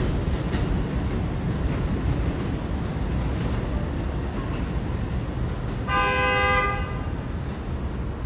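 R142-series subway train running away along the elevated track, its rumble slowly fading. About six seconds in, a train horn sounds once for just under a second.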